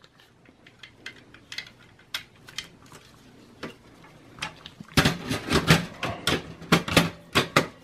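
Plastic SATA and power cable connectors and the hard-drive caddy clicking and rattling as they are handled and pushed onto a hard drive. Faint scattered clicks at first, turning into a busy run of louder clicks and rattles about five seconds in.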